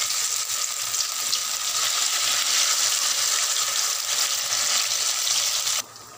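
Semolina-batter-coated bread slices deep-frying in hot oil in a pan, a dense steady sizzle with fine crackling that drops away sharply near the end.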